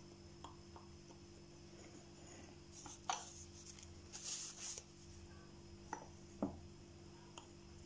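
Faint knife cutting a soft coconut-topped dessert in a glass baking dish: a few light clicks and taps and a brief scraping rush about halfway through, over a steady low hum.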